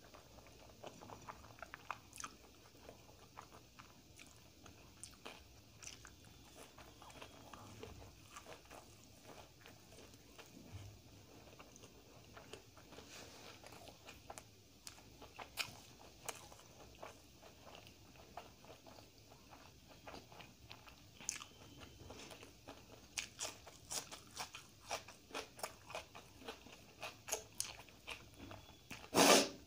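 Close-up eating sounds: a person chewing mouthfuls of dal and rice eaten by hand, with small wet clicks throughout. Crisper, louder crunching bites come in the last third, and one loud crunch lands near the end.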